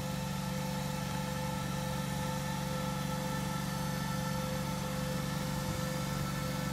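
Ride-on triplex greens mower cutting a golf green, its engine running steadily at one pitch: a constant hum with a few steady higher tones above it.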